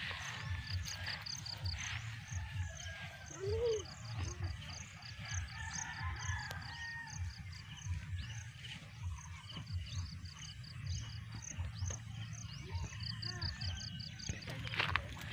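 Rural field ambience: small creatures chirping in rapid, evenly spaced pulse trains that repeat, over a low uneven rumble from the camera being carried while walking through grass.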